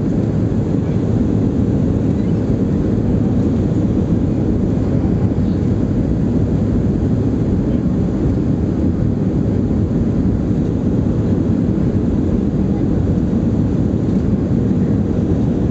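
Steady low rumble of cabin noise inside a Boeing 737-300 on final approach with flaps extended: its CFM56-3 turbofan engines and the airflow over the wing, unchanging throughout.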